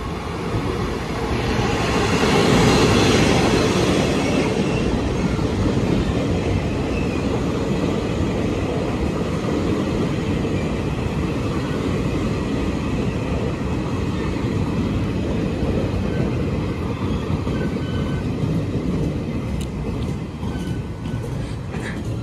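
A Chu-Kuang express passenger train running into a station: loud rumble and rail noise of the passing train, loudest about two to three seconds in, then a steady run of coaches rolling by. A few sharp clicks near the end.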